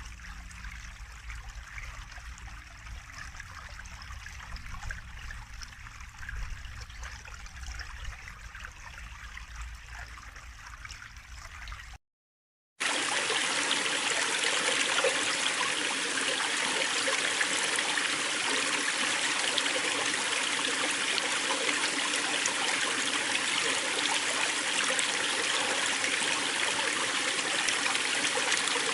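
Stream water running and trickling, fairly soft with a low rumble underneath. About twelve seconds in it cuts out for under a second, and a louder, brighter rushing stream takes over and runs steadily.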